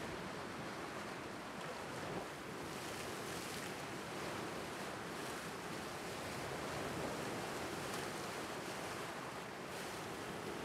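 Lake Superior waves rolling in and breaking over a flat rock shoreline: a steady rush of surf that swells several times as individual waves crash and wash across the ledges.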